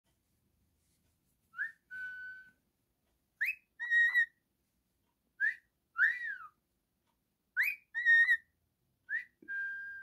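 Male cockatiel whistling a repeated two-note phrase: a quick rising note, then a longer held or arched note. The phrase comes five times, about every two seconds.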